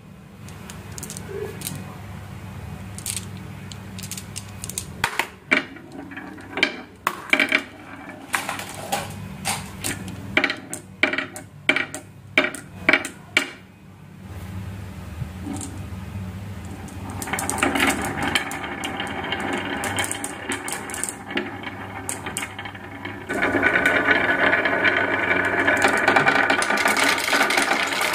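Marbles running through a marble run: a string of quick clacks and clicks for roughly the first half, then a steady rolling rumble that gets louder again a few seconds before the end.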